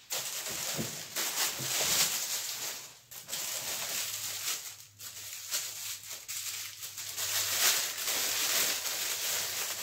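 Plastic packaging crinkling and rustling with irregular crackles as a new pan and its cardboard insert are unwrapped by hand.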